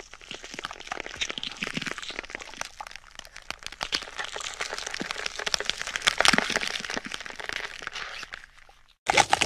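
Gore and bone-crack sound effect: a dense run of crunching and cracking, like bones snapping, loudest past the middle. It fades and cuts to silence near the end, and then a louder burst of crunching begins.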